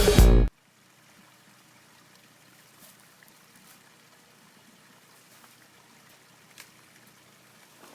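Electronic intro music that cuts off suddenly about half a second in, followed by faint outdoor ambience with a trickling stream and a few small clicks.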